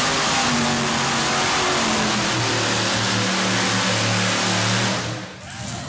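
Modified pulling tractor's supercharged engine running flat out under the load of the pulling sled. Its pitch drops about two seconds in and holds lower, and the sound falls away sharply about five seconds in.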